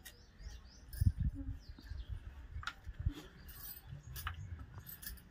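Light clinking and handling noise from bangled hands moving around a small serving bowl, with a few low thumps about a second in and birds chirping faintly in the background.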